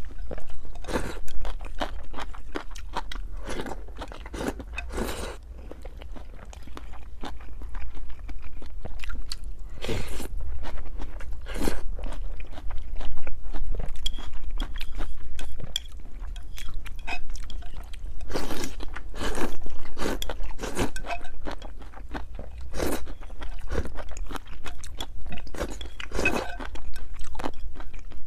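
Close-miked sounds of someone eating rice noodle rolls (cheung fun): wet, sticky chewing and mouth noises with frequent sharp smacks and bites, over a faint steady low hum.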